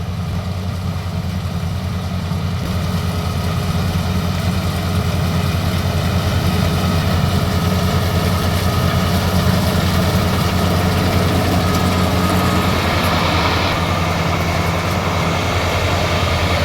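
Mahindra paddy combine harvester's engine running steadily with a deep hum and a hiss of machinery that slowly grows louder.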